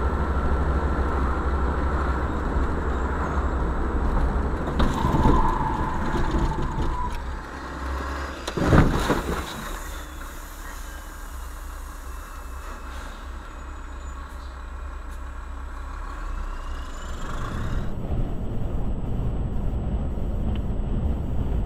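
Car road and engine noise in a car, with a sudden loud crash about nine seconds in as the car collides with a semi-trailer truck alongside. The noise is quieter after the crash, and about eighteen seconds in a different steady vehicle drone takes over.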